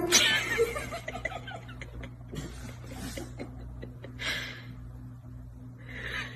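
A person laughing quietly in breathy snickers, with squeaky wavering sounds in the first second and two breathy bursts later on.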